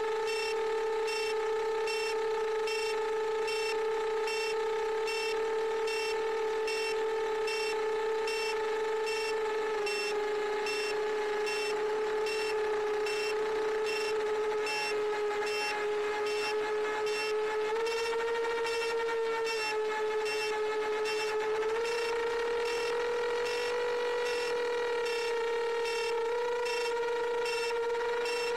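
7-inch FPV quadcopter's Emax Eco 2807 1300kv motors and propellers on 6S, whining steadily in cruise as picked up by the camera on the frame. The pitch shifts up and down in small steps as the throttle changes, rising a little about two-thirds of the way through.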